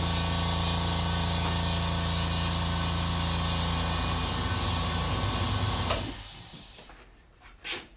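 California Air Tools 8010ALFCAD oil-free air compressor running: a steady motor-pump hum with a hiss of air over it. It cuts off about six seconds in and dies away within the next second.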